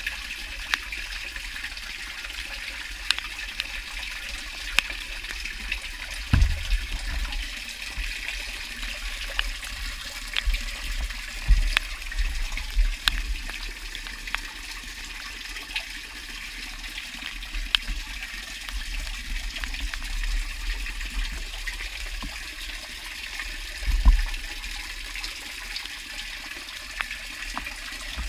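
Water trickling and dripping steadily inside a stormwater catch-basin manhole, with scattered small ticks. A few low thumps stand out, at about six, eleven and twenty-four seconds in.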